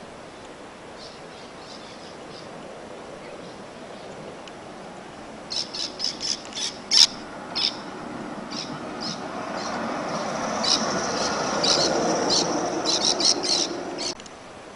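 Battery-electric 5-inch-gauge model Sydney tramcar running past on its track, the rumble of its wheels and motor building up and then cutting off abruptly near the end. Short high squeaks come in bursts over it, with one sharp click just before the rumble builds.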